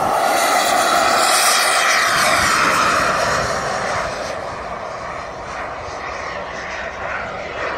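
Turbine engine of a radio-controlled model jet passing in flight, a loud rushing whine that swells to its loudest in the first couple of seconds and then fades as the jet moves away.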